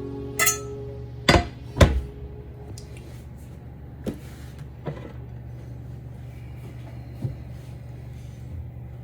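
Background guitar music fading out, then a few sharp knocks and clinks of kitchenware, three close together near the start and a few fainter ones later, over a steady low hum.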